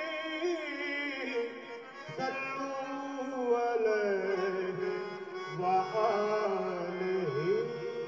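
Qawwali singing: a male voice draws out long, sliding melodic phrases over instrumental accompaniment with steady held notes.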